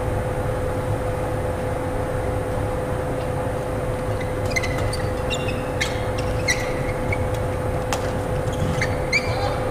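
Steady low rumble and hum of a badminton hall. From about four and a half seconds in, a rally: sharp racket strikes on the shuttlecock and short squeaks of court shoes.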